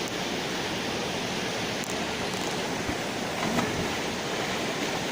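Waterfall's falling water making a steady, even rush, with a couple of faint clicks.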